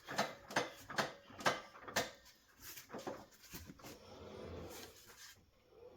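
Clicking, creaking knocks from a Subaru Crosstrek's front steering and suspension as the front wheel is turned by hand, about two a second, growing fainter after two seconds. This is the car's odd steering noise, which could be a dry ball joint.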